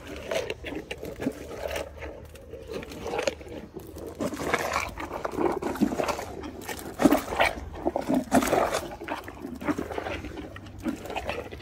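Hippopotamus chewing watermelon at close range: irregular chomping and crunching, loudest a little past the middle.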